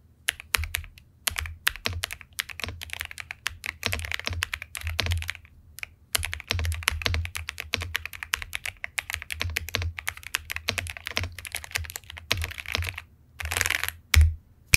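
Typing on the Epomaker Cypher 81 mechanical keyboard as a sound test: quick runs of key clacks broken by short pauses, with one louder, deeper key strike near the end.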